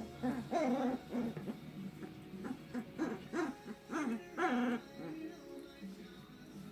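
Seventeen-day-old puppies whining and squeaking: a run of short, high calls that bend up and down in pitch, thinning out over the last couple of seconds.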